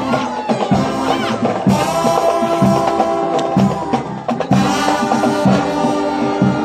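Marching church brass band of tubas and euphoniums playing sustained chords over a steady drum beat.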